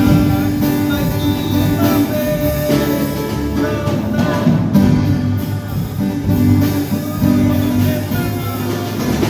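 Hymn music played on guitar, with singing over it.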